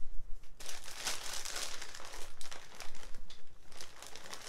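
Packing material crinkling and rustling in a cardboard box as hands rummage through it, in irregular crackly bursts starting about half a second in.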